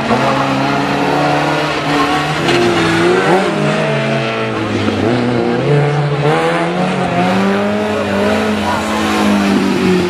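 Small rally hatchbacks' engines revving hard through a tight chicane, one car after another. The pitch repeatedly falls and climbs as they lift off, brake and accelerate again, with a long rising pull near the end as the second car comes past.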